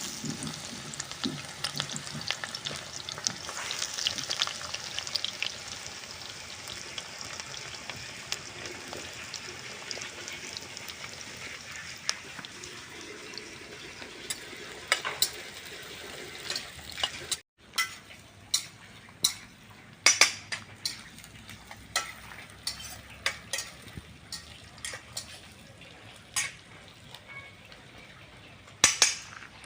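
Onions frying in hot oil in an iron kadai over a wood fire: a steady sizzle, loudest in the first few seconds. A spatula scrapes and clinks against the pan as they are stirred, and the clinks stand out after a brief break about halfway through.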